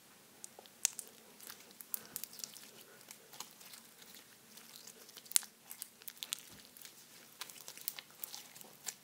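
White foam-bead slime squeezed and stretched by hand, giving irregular sharp crackles and pops, with one louder pop about five seconds in.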